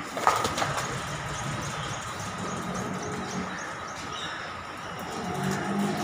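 Dairy cow shed sounds: a sharp knock just after the start, small birds chirping in quick repeated notes through the first half, and two spells of low, deep calls, the second near the end, over a steady high hum.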